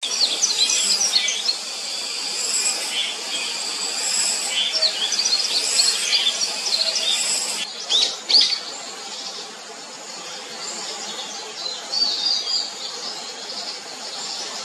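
Scaly thrush nestlings begging with many high, thin chirps, thick in the first half and sparser later, and two sharp clicks about eight seconds in.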